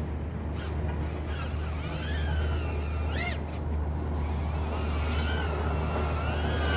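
Brushless motors of an LDARC ET100 micro racing quadcopter whining in flight, the pitch rising and falling with throttle and sweeping sharply up about three seconds in as the quad punches out. A steady low rumble runs underneath.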